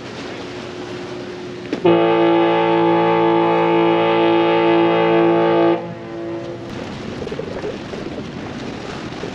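Large car ferry's horn sounding one long, steady blast of about four seconds, starting about two seconds in, with wind on the microphone before and after.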